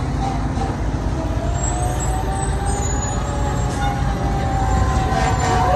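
Fire truck's siren gliding slowly down in pitch, then sweeping sharply up again near the end, over the steady low rumble of the truck's engine.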